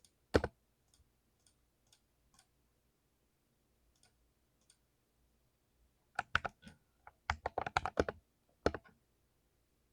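Mechanical keyboard with lubed Cherry MX Speed Silver linear switches being typed on. One firm keystroke comes near the start, then a few faint taps, then quick flurries of keystrokes from about six seconds in to nearly nine seconds.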